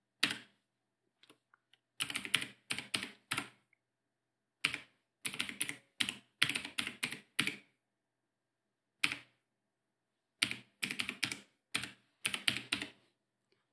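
Typing on a computer keyboard: three runs of quick keystrokes separated by pauses, with a couple of single key presses in between.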